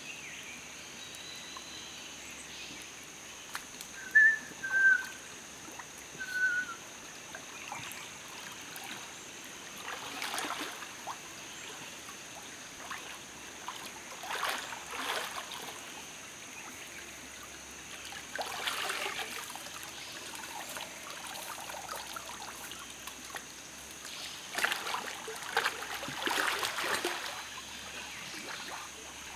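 Water splashing and sloshing in a shallow rocky river pool as a person swims and wades, in surges every few seconds over the steady trickle of the stream. A bird chirps a few times near the start, and a thin high tone runs throughout.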